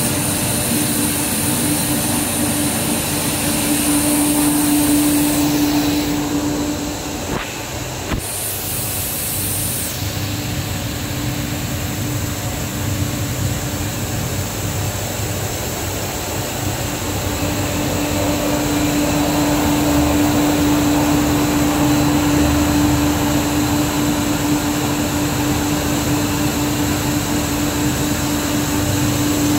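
Single-screw plastic recycling granulating line running: a loud, steady drone of electric motors and screw feeders with a constant hum over it. The level dips briefly about seven seconds in.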